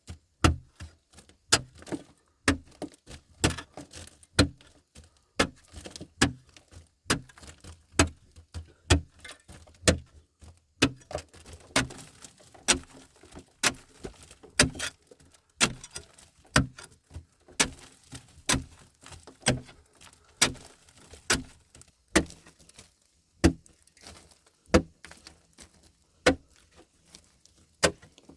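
A run of sharp knocks, about two a second and uneven in strength, keeping an even working rhythm throughout.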